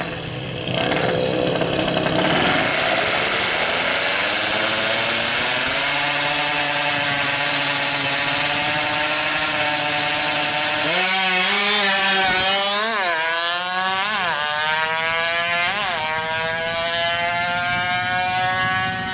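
Yamaha F1ZR's tuned 116cc two-stroke engine revved hard and held at high revs on the start line, its pitch creeping upward. About eleven seconds in the bike launches: the pitch sweeps up and drops with each of several quick gear changes, then holds a high, sharp note as it pulls away down the strip.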